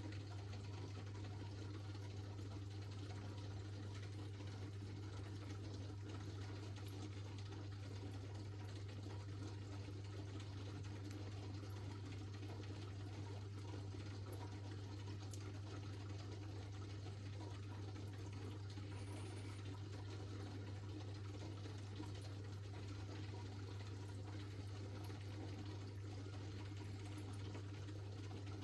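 More powerful aquarium filter running: a steady low electric hum under a constant wash of moving water.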